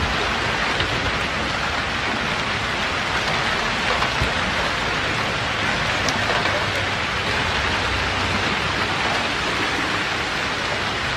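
Hail and heavy rain pelting a paved road: a dense, steady hiss with a few scattered clicks of hailstones striking.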